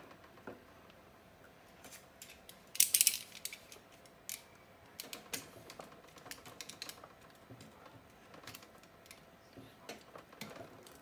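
Irregular clicks and rustles of a pack of 18650 battery cells and their wires being handled and pushed into a plastic lamp housing, with a louder sharp clatter about three seconds in.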